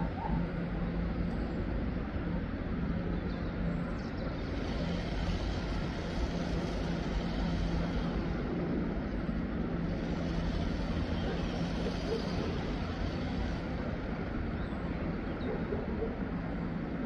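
A diesel train running in the distance: a steady low drone with a constant hum over a rumble that doesn't change.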